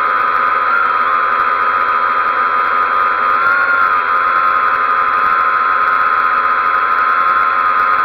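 XK X380 quadcopter's propellers and motors whining steadily in flight, the pitch shifting slightly about a second in and again around three and a half seconds.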